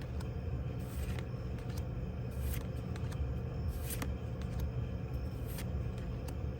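Trading cards being handled and slid against one another, a few short soft scrapes, over a steady low hum.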